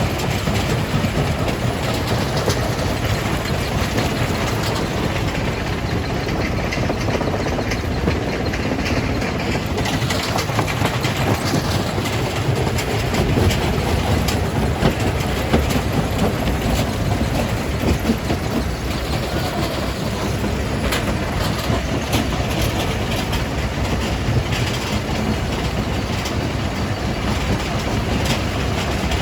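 Jaw crusher crushing rock: a steady, loud mechanical rumble and clatter with many small knocks of stone.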